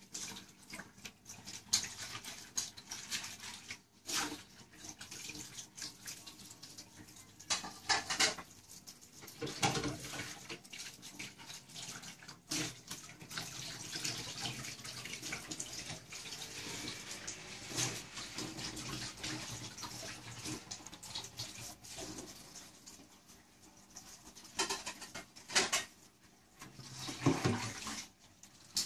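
Water splashing and trickling in a plastic bucket of live mentarang clams, coming in irregular louder spurts over a steady hiss.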